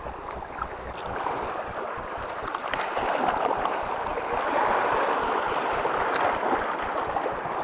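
Sea waves washing and splashing against shoreline rocks, a steady churning wash.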